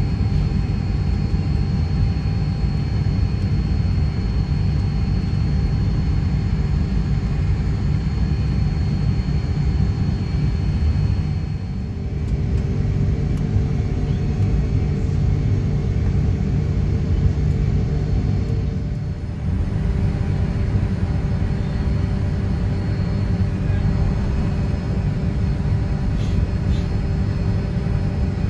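Cabin noise of a Boeing 787-9 taxiing: a steady low rumble with a few faint steady tones above it. The level drops briefly twice, about twelve seconds in and again near nineteen seconds.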